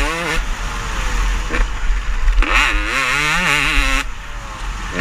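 Motocross race bikes revving hard, their engine pitch jumping up and down in quick throttle blips as they take the jumps; one bike is loudest in the middle, with a quieter gap near the end.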